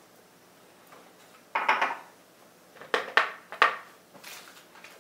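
A spoon clinking against a glass jar and mixing bowl while caramel is scooped out: a quick cluster of taps about one and a half seconds in, three sharper clinks around three seconds, then a softer scrape near the end.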